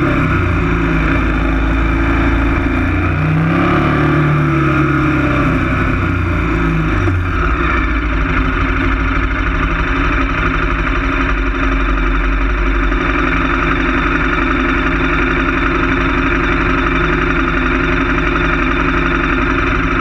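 KTM 1190 Adventure S's V-twin engine slowing down, its revs falling with one brief rise and fall a few seconds in, then settling to a steady idle from about seven seconds in with the bike at a standstill.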